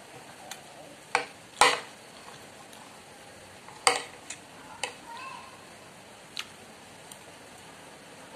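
Metal spoon and fork clinking and scraping against a ceramic plate while eating: about half a dozen sharp clinks, the loudest one about a second and a half in, over a faint steady hiss.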